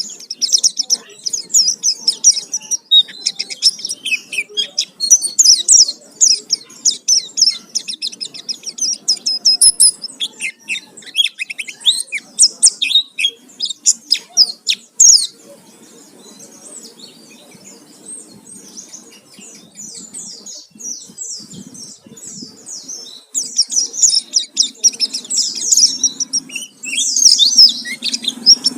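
White-eye (pleci) singing a fast, busy song of high twittering notes, its full 'isian' filler song. It goes quieter for about eight seconds midway, then resumes just as busily.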